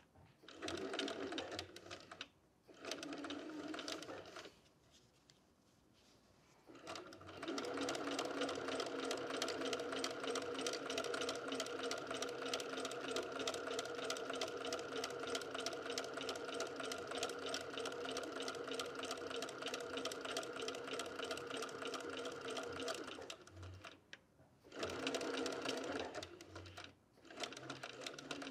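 Domestic sewing machine stitching a quarter-inch seam through two layers of cotton fabric. Two short runs at the start and two near the end are the back stitch that locks the seam. Between them, after a pause of a couple of seconds, comes one steady run of about sixteen seconds.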